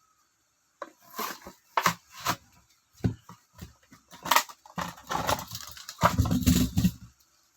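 Toy packaging being opened by hand: irregular crinkling, tearing and knocking of cardboard and plastic, with a louder, denser stretch of rustling and ripping near the end.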